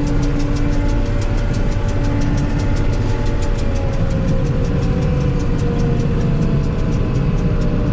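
John Deere 8820 combine running steadily, with a fast, even ticking over the engine's rumble and a tone that slowly falls in pitch.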